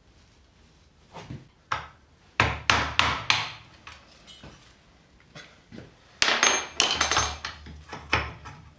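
Irregular hammer blows on metal, some single and some in quick runs of three or four, the louder strikes with a short high metallic ring.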